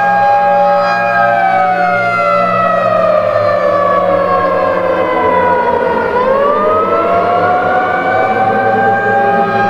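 Civil defense siren wailing in several tones at once: it holds a steady pitch, glides slowly down for about five seconds, then winds back up to a steady pitch near the end, over a steady low hum.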